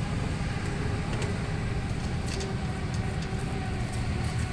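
Steady low background rumble, with a few faint light clicks as a bicycle front wheel's axle is handled and set into the fork dropouts.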